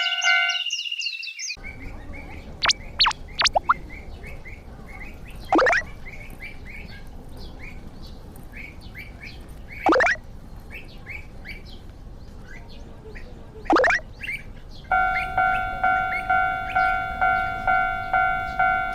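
A Japanese railroad crossing bell ringing kan-kan about twice a second stops in the first second. Birds then chirp over a steady outdoor hiss, with three long falling whistled calls. The crossing bell starts again about fifteen seconds in.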